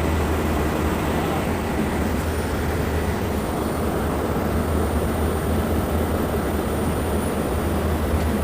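Armstrong VFD-driven pump and its electric motor running steadily: a constant low hum over a broad even rushing noise.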